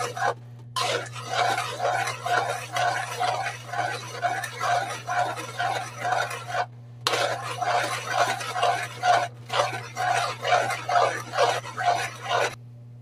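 Metal spoon stirring a simmering sauce in an aluminium wok, scraping the pan in even strokes about twice a second. There are a few brief pauses, and the stirring stops near the end.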